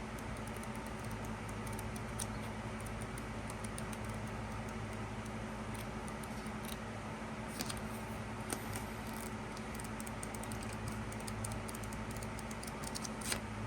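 Scattered light clicks and taps of card and plastic pieces being handled, over a steady low electrical hum.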